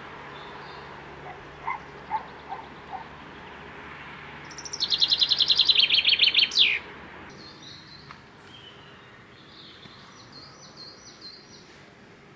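Songbird singing: a loud, fast trill of about ten notes a second that steps down in pitch and ends in a quick downward sweep, with a few short calls before it and fainter high chirps after.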